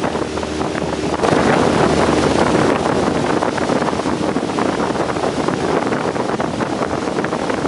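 Wind buffeting the microphone in an open boat under way, with the boat's motor running steadily underneath; the rushing gets louder about a second in.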